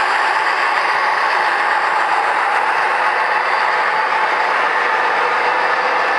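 MTH model freight train rolling past on its track, the last diesel locomotive then loaded coal hoppers, making a steady, even running noise.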